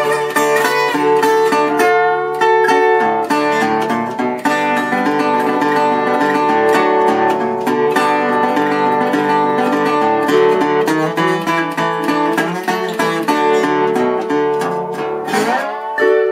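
Metal-bodied resonator guitar played bottleneck style, fingerpicked with a slide, in an instrumental blues. Near the end the slide glides up into a final chord that rings on.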